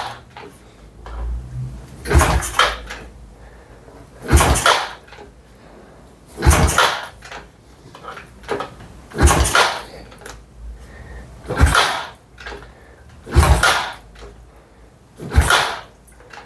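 Kawasaki ZX130's single-cylinder four-stroke engine being kick-started over and over, about one kick every two seconds with the throttle slightly open. Each kick turns the engine over with a short burst of noise, but it does not catch. With a dead battery and starter and no decompressor, it can only be kicked over by foot.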